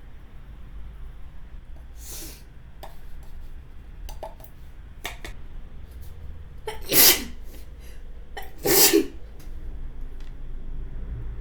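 A person sneezing twice, about two seconds apart, near the end, in a sneezing fit set off by pepper. A softer breath sound comes about two seconds in.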